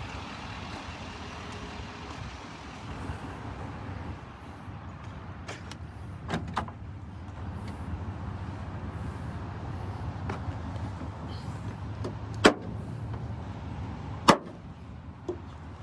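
A few sharp clicks and knocks from handling the pickup's tailgate and bed hardware, the two loudest about two seconds apart near the end, over a steady low outdoor rumble.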